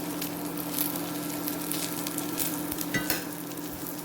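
Cottage cheese pancakes sizzling in hot sunflower oil in a frying pan, with a steady frying hiss and irregular crackles and pops of the oil.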